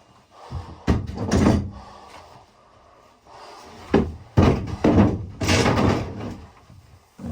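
Sharp knocks and rasping cracks as the boat's cabin floor is pried and broken out by hand: one knock about a second in, then two more knocks and a run of cracking and scraping from about four seconds in.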